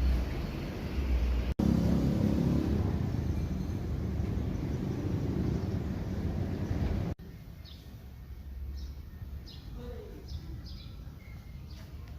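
Loud low rumbling noise, as of wind buffeting the microphone or a moving vehicle, for about seven seconds with an abrupt break partway through. It then cuts off suddenly to a quieter outdoor ambience with small birds chirping repeatedly.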